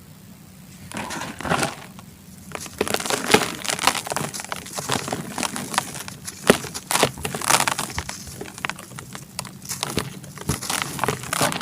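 Gritty charcoal being crumbled and crushed, a dense run of crunching and crackling with many sharp snaps, starting about a second in.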